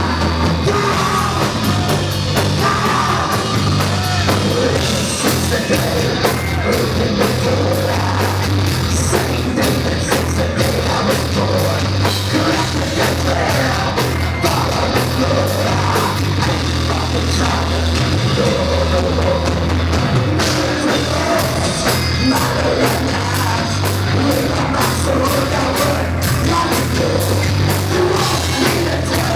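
Live rock band playing loud, heavy rock: pounding drum kit, a steady bass line and distorted guitars, with a singer's voice over the top.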